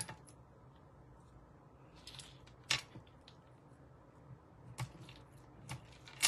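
Papercraft tools and card stock being handled on a work table: a few sharp clicks and taps, spaced a second or two apart.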